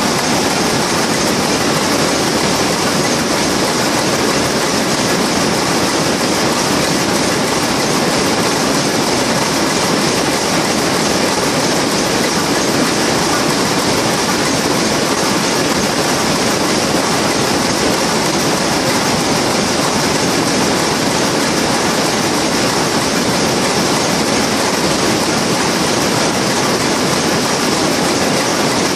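Shuttleless towel looms running in a weaving shed: a loud, steady, dense mechanical clatter that never lets up.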